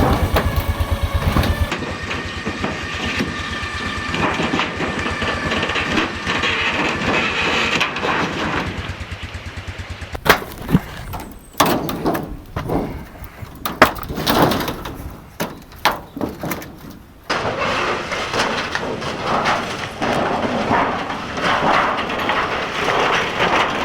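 Quad bike engine running while its winch pulls on a caravan. About ten seconds in comes a run of sharp cracks and bangs as the caravan's frame and sheeting are torn apart, and then the engine noise returns.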